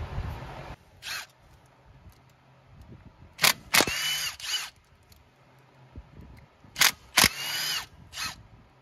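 Milwaukee cordless driver backing out the stator side-cover bolts on a Polaris Ranger 570 engine. It runs twice, about halfway through and again near the end. Each time there are a couple of sharp loud clicks, then a short whir that rises in pitch. A steady hiss cuts off within the first second, and a short tool burst comes about a second in.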